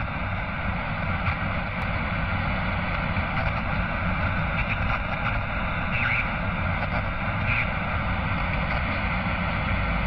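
Steady rushing noise, a low rumble with hiss over it, holding an even level throughout.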